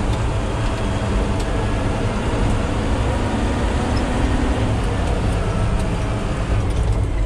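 Yard truck (yard goat) engine running steadily, a constant low engine noise without changes.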